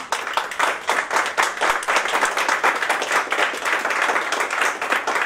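Audience applauding, a dense, steady run of hand claps.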